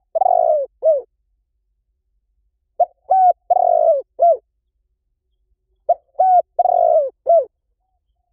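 Spotted dove cooing: a phrase of four notes, the third long and rough and the last falling, repeated about every three seconds.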